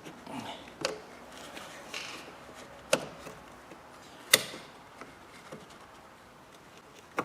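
Small pointed hook pick prying at a rusted, dirty plastic clip on a headlight wiring connector, giving a few sharp clicks as the tight catch is worked loose. The loudest click comes a little over four seconds in.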